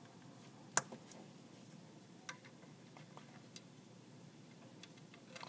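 Plastic Lego bricks clicking as a hand handles them and presses them onto the build: a few scattered sharp clicks, the loudest about a second in.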